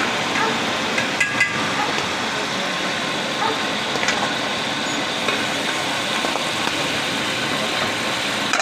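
Chopped meat sizzling steadily in hot oil on a large flat griddle (tawa), with a few light clicks, about a second in and again about four seconds in.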